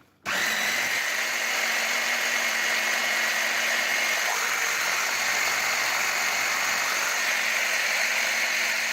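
Electric blender switching on and running steadily as it blends thick hazelnut paste with melted chocolate and oil, a constant motor whine over the churning.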